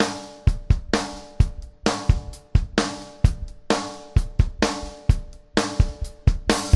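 Background music: a steady drum-kit beat with cymbal hits over sustained chords.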